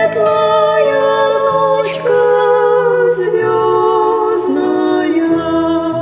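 Slow lullaby music with no words: long held melody notes that change about once a second, carried by choir-like vocal sound.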